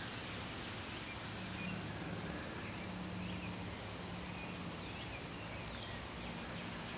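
Outdoor ambience: a steady background hiss with scattered short bird chirps and a faint low hum.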